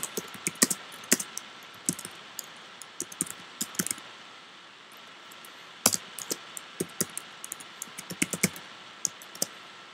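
Typing on a computer keyboard: irregular runs of key clicks, with a pause of a second or two in the middle.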